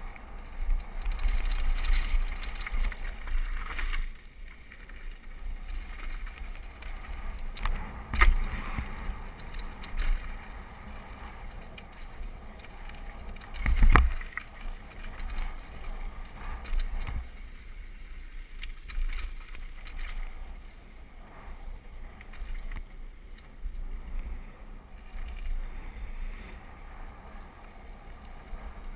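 Mountain bike riding fast down a dirt and gravel trail: tyres crunching and the bike rattling over rough ground, with a steady rumble of wind on the microphone. Two hard knocks stand out, about eight and fourteen seconds in.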